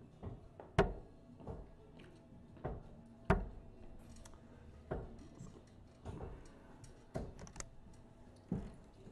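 Steel-tip darts striking a Winmau Blade 6 bristle dartboard: two sharp hits about two and a half seconds apart, with softer knocks in between.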